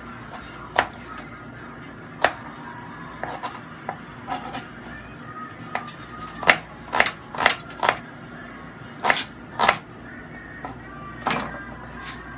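Kitchen clatter from off-camera: about fifteen sharp, irregular knocks, like a knife or utensils on a board or counter, bunched in quick clusters about halfway through. Faint music plays in the background.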